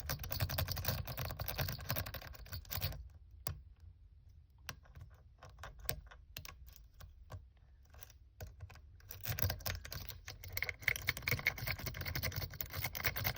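Triple cycloid rake clicking and scraping rapidly over the pins of a 5-pin F&F shutter lock as it is raked: fast clicking for about three seconds, then slower scattered clicks, then fast again from about nine seconds in.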